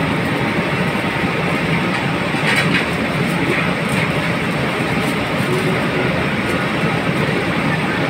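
Steady rumbling background noise of a commercial kitchen, with aluminium foil crinkling now and then as it is folded and creased by hand, most clearly a little over two seconds in.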